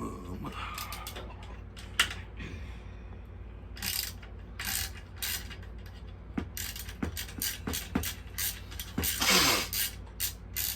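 Hand ratchet wrench clicking in quick runs while bolts are worked loose on a mini bike engine, with a sharp knock about two seconds in and a longer rasp near the end.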